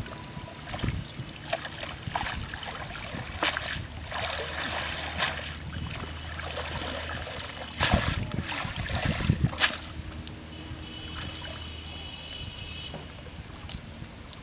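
Water splashing and dripping as a wet cast net is hauled up out of shallow pond water. Irregular splashes and trickles come and go throughout.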